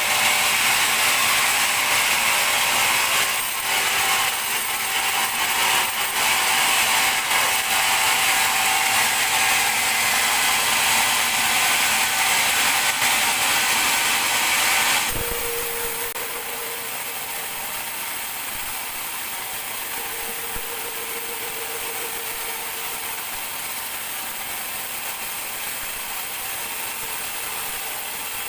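Sawmill band saw running through a teak log, a steady loud hiss of sawing. About halfway through it changes suddenly with a knock to a quieter steady machine run with a faint hum.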